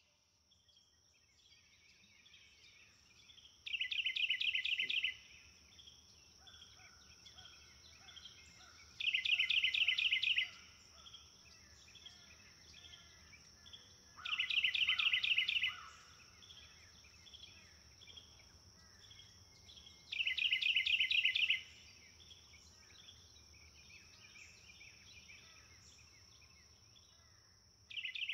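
Outdoor nature ambience: a steady high-pitched insect-like drone, with a loud rapid trill repeating about every five and a half seconds and softer chirps in between.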